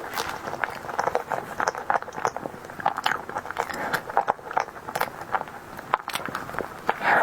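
Close-miked eating sounds: a person chewing and biting a tiger skin dessert, with many short, irregular mouth clicks.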